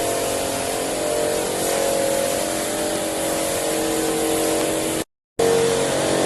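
Steady drone of running machinery: a constant rushing noise with several steady hum tones, cutting out for a moment about five seconds in.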